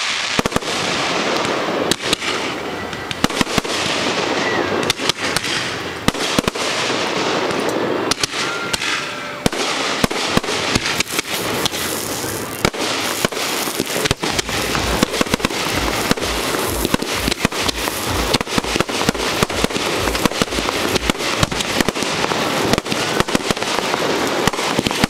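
Aerial firework shells bursting at close range: a constant barrage of bangs and crackling. From a little past halfway, deep booms come thick and fast.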